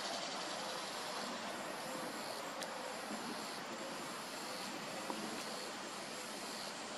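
Outdoor ambience of insects trilling steadily in a high register, their chorus swelling and dropping every second or so, over a low even hiss of background noise. Two faint clicks, about two and a half and five seconds in.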